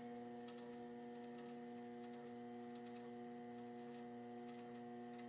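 Electric potter's wheel running with a steady electrical hum made of several fixed tones, with faint scattered ticks as wet clay is shaped by hand on it.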